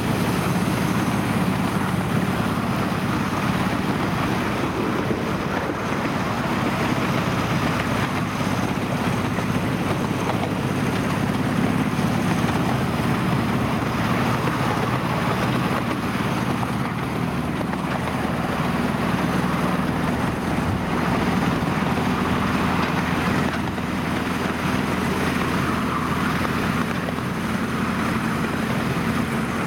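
A miniature-railway diesel locomotive hauls the passenger train at a steady pace, with an even engine drone and the running noise of the train. Wind buffets the microphone on the moving carriage.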